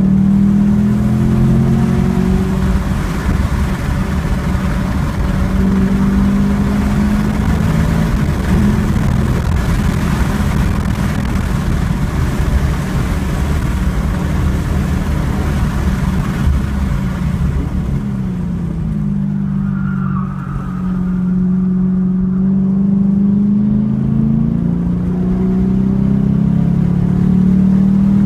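2014 Camaro SS 1LE's 6.2-litre V8, heard from inside the cabin, pulling hard at full throttle through third and fourth gear at about 4,000 to 5,000 rpm over steady wind and tyre roar. About two-thirds of the way through, the engine note falls away with a brief lift and a downshift, then climbs again as the throttle goes back down in third.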